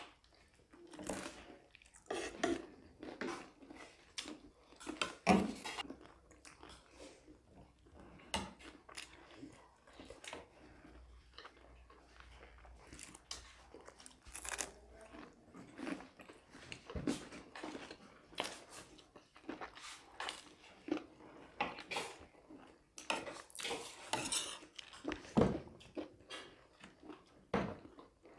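Metal spoons clinking and scraping on plates of chatpatte, with chewing and crunching of food between the clicks. The clinks come irregularly, a few louder ones about five seconds in and again near the end.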